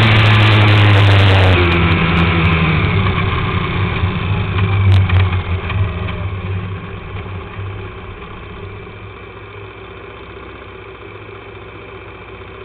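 Quad bike engine falling in pitch as the bike slows, then idling steadily once it has stopped.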